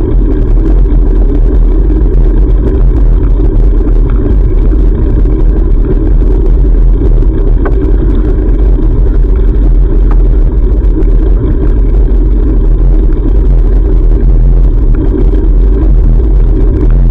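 Loud, steady low rumble of wind buffeting an action camera's microphone while cycling, with a couple of faint ticks in the middle.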